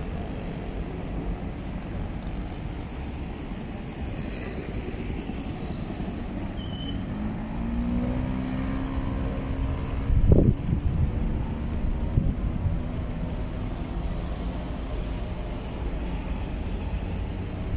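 Road traffic at a roundabout: cars and motorbikes passing with a steady low rumble. About halfway through, one engine's pitch rises as it accelerates, followed by a short loud low rumble.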